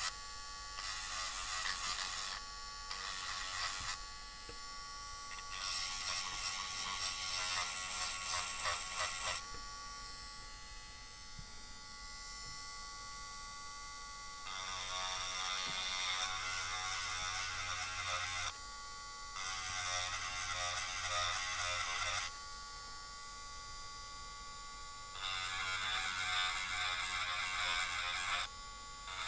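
Rotary tool (Dremel) running with a steady whine and grinding into a Mini 4WD chassis part in about six passes of a few seconds each, quieter between passes.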